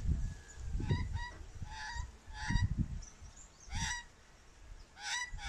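Australian magpie giving a series of short, pitched calls, irregularly spaced and some in quick pairs.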